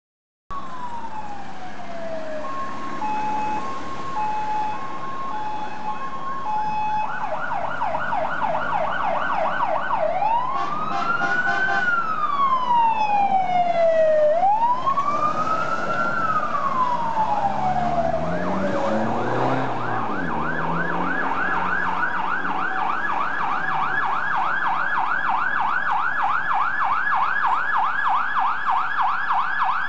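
Electronic sirens of two fire engines, a Volvo water tender and a MAN aerial ladder truck, on an emergency run. The sirens go through an alternating two-tone hi-lo, a fast yelp, two slow rising-and-falling wails, then a steady fast yelp, with a deeper sound sliding down in pitch about two-thirds of the way through.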